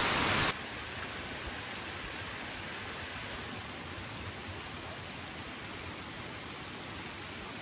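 Small forest waterfall and creek rushing as a steady, even hiss. The level drops about half a second in, then holds.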